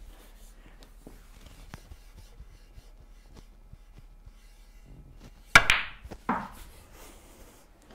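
Snooker shot: a sharp click of hard balls colliding about five and a half seconds in, the loudest thing here, with a short ringing tail. A second, softer click follows under a second later, as the cue strikes the cue ball and the cue ball hits a red in the pack.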